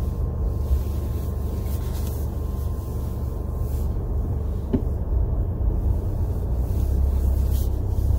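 Steady low rumble of a car running, heard from inside the cabin, with a faint steady hum above it and one small click a little under five seconds in.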